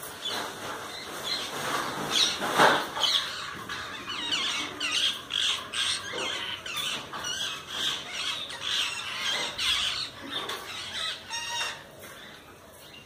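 Birds calling, a busy run of short chirps and squawks with a couple of louder calls in the first few seconds.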